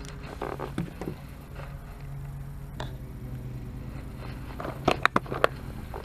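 Fishing tackle handled at close range: a spinning rod and reel knocked and clicked in the hands, with a quick run of sharp clicks about five seconds in, just before a cast. A steady low hum runs underneath.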